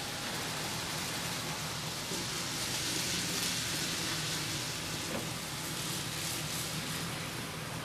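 HO scale model trains running on the layout's track: a steady rolling rush of small wheels on rails, swelling a little about three seconds in.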